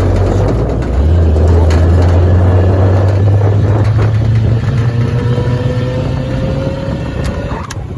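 A motor running steadily with a strong low hum and a noisy, wind-like haze. Midway through, a faint tone rises slowly in pitch, and the sound briefly dips near the end.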